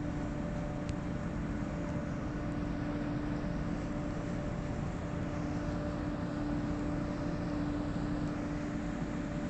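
Steady drone of a boat's diesel engine: a low rumble with an unchanging hum.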